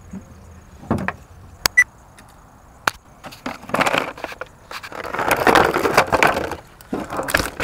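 Stiff clear plastic clamshell packaging of a washdown pump kit being handled and pulled open: a few sharp clicks, then loud crackling and crinkling in three spells through the second half.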